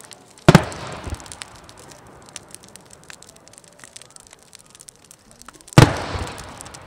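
Two aerial fireworks shells bursting with loud booms about five seconds apart, each trailing off in a rolling echo. A faint crackling runs underneath.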